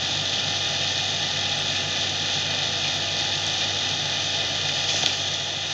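Steady mechanical background noise, a constant hiss with a low hum beneath it, as from a machine or motor running without let-up.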